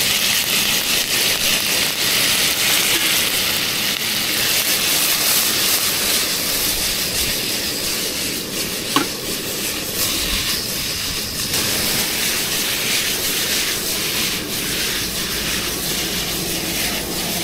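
Stir-fry of beef, carrot and dried tofu sizzling in a wok over a gas burner: a steady hiss with short clicks as the wok is tossed, and one sharper click about nine seconds in.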